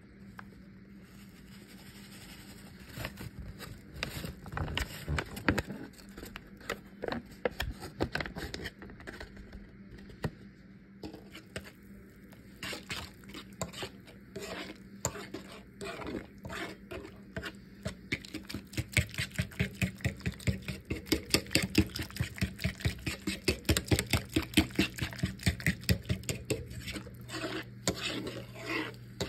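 Gravy mix being stirred in a pot: a utensil knocks and scrapes against the pan in quick, regular strokes, about three or four a second. The strokes are scattered at first and grow denser and louder in the second half.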